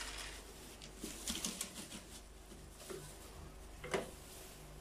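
Soft rustling and scraping with a few light clicks, and one sharper click about four seconds in: a vacuum cleaner's dust container being emptied by hand.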